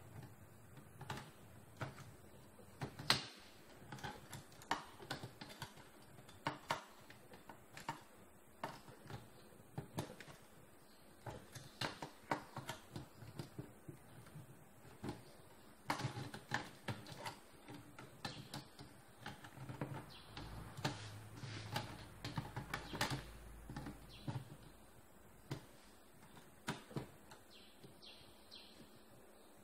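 Irregular clicks and light knocks of metal and plastic parts as a copier fuser unit is handled and taken apart by hand.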